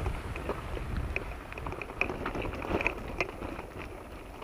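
Vehicle driving slowly on a rough road: a steady low rumble with many scattered, irregular clicks and crackles.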